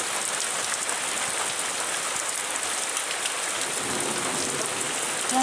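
Heavy rain falling steadily on trees, trackside ballast and ground, an even hiss.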